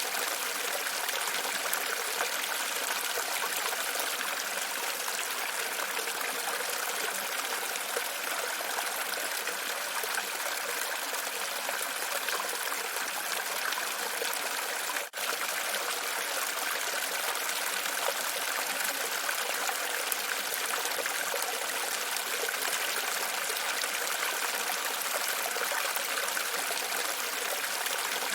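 Steady running water, a continuous trickling splash, broken by a brief dropout about halfway through.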